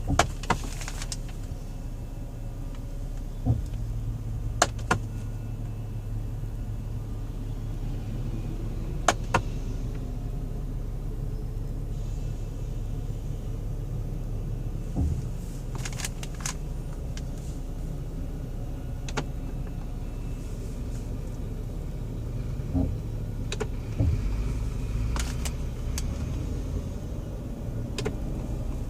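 Sharp ticks at irregular intervals of a few seconds from a 2013 Volkswagen Touareg's flap motor, over the car's steady low hum.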